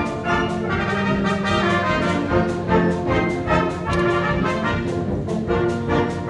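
Several trumpets playing a piece together in harmony, with notes changing several times a second.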